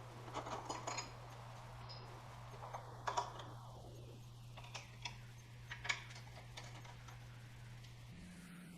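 Faint, irregularly spaced clicks and light taps over a steady low hum.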